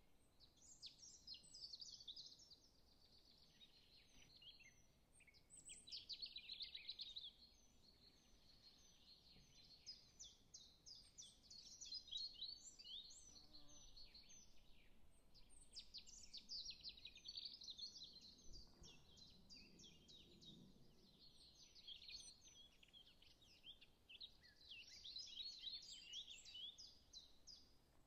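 Faint, almost continuous chirping of many small birds: dense runs of short, high chirps that swell and ease off every few seconds.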